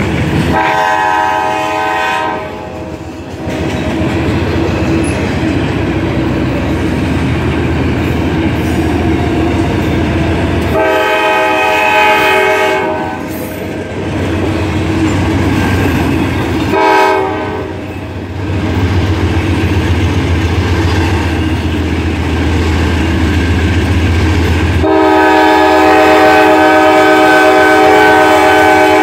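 Freight train cars passing close by with a steady rumble and clatter of wheels on rail. Over it, a diesel locomotive's multi-note air horn sounds the grade-crossing signal: a long blast, a second long blast, a short one, and a final long blast held near the end.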